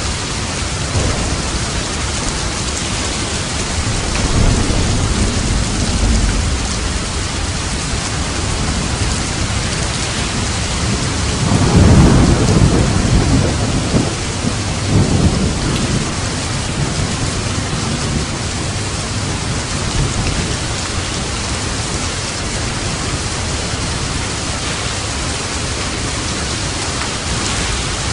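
Steady rain on a roof with thunder rumbling. A low roll comes about four seconds in, and a louder peal about twelve seconds in rolls on for several seconds.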